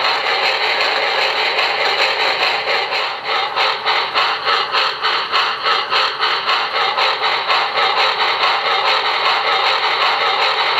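Recorded steam-locomotive running sound from a QSI Maxx Traxx sound unit played through a small speaker. It is a steady steam hiss that turns into a rhythmic chuffing of about four beats a second for several seconds in the middle.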